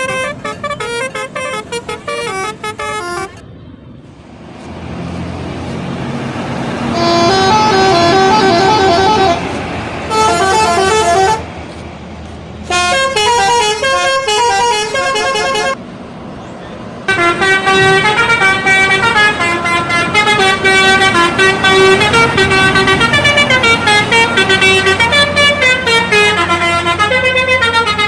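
Indonesian bus 'telolet' musical horns playing rapid multi-note tunes in several long bursts, the notes stepping quickly up and down in pitch. A few short pauses break the tunes, and in them a bus engine can be heard running.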